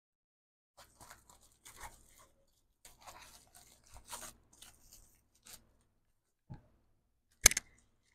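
Plastic packaging crinkling and rustling in irregular bursts as items are handled. Then a soft knock, and a second later a sharp click, the loudest sound, near the end.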